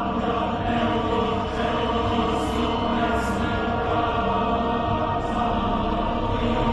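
Eerie soundtrack music: sustained droning tones with chant-like voices, and a few brief airy swishes in the middle.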